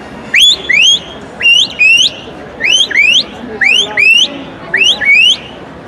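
A handmade palate whistle (a small membrane call pressed against the roof of the mouth) blown to imitate a chamois's warning whistle: five pairs of short, rising whistle notes, about one pair a second.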